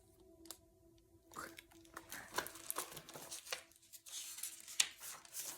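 Faint rustling and light clicks of paper being handled, like the pages of a picture book being turned, over a faint steady hum.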